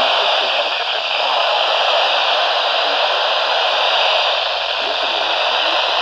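Radio static: a steady, loud hiss from a receiver on a weak signal, with a faint broadcast voice buried under the noise reading a severe thunderstorm warning.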